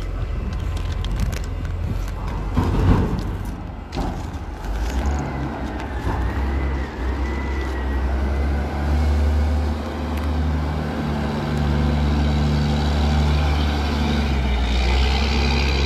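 Heavy diesel engine of a container reach stacker running steadily, its low hum growing stronger about five seconds in. A few clicks and knocks come in the first few seconds.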